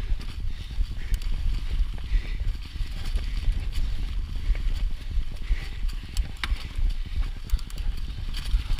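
Trek 29er mountain bike rolling down leaf-covered dirt singletrack, heard from a camera mounted on the bike or rider: a constant low rumble of wind and trail vibration, the hiss of tyres over dry leaves, and frequent light clicks and rattles from the bike over bumps.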